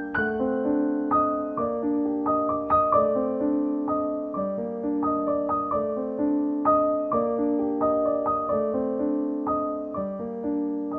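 Background piano music: chords and single notes struck and left to ring, at a slow, even pace.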